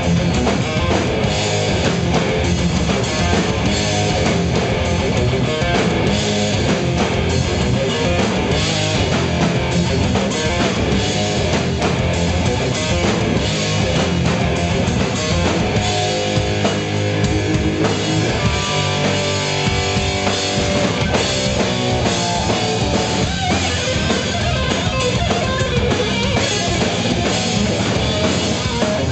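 Hard rock band playing live: electric guitar, bass guitar and drum kit, loud and steady throughout. Around the middle, a few seconds of held notes ring out over the band.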